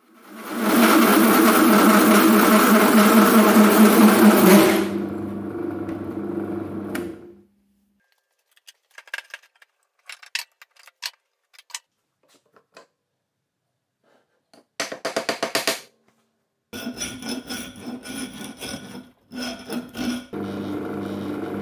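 Drill press running a large hole saw through steel plate, a loud grinding chatter for about five seconds, then the machine running on more quietly until it stops at about seven seconds. After scattered handling clicks, a hand file rasps in quick strokes across the edge of the cut steel flange in the last few seconds.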